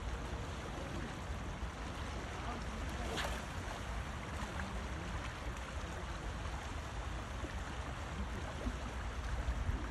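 Steady seaside ambience: a low rumble and hiss of open-air wind and small waves washing against the rocky shore, with a brief swish about three seconds in.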